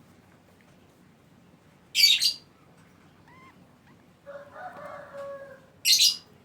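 Lovebird giving two short, loud, harsh shrieks about four seconds apart, with faint soft chirps between them and a quieter, lower chattering sound shortly before the second shriek.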